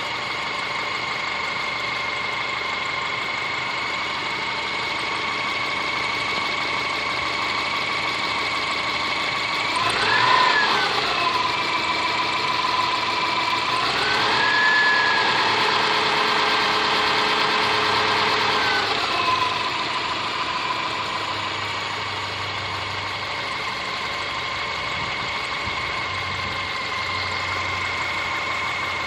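Subaru Forester SG5's EJ25 flat-four engine idling with a knock. It is revved briefly about ten seconds in, then held at higher revs for about five seconds before dropping back to idle.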